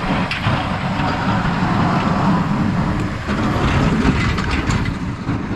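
Snowplow truck driving past, a loud steady rumble of its engine and tyres on the snowy road.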